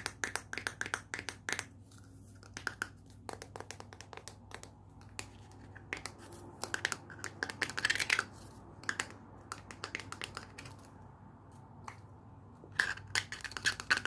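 Fingers and fingernails tapping, scratching and clicking on a small plastic jar and its lid: quick runs of sharp clicks that come in clusters, thinning out for a couple of seconds in the middle.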